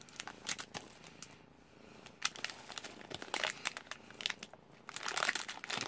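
Plastic blind bag crinkling as it is handled and opened by hand, in irregular spells of crackles, loudest near the end.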